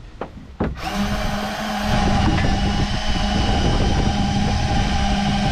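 A few sharp clicks, then about a second in a drill starts and runs at a steady speed, driving a Warn portable drill winch as it winds in its steel cable.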